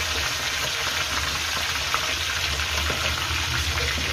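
Hot oil sizzling steadily around a whole spiced chicken deep-frying in a karahi.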